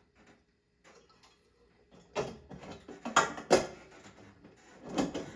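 Metal clanks and rattling as a 1995 Hunter ceiling fan is lifted and fitted onto its ceiling mounting bracket, with several sharper knocks in the second half.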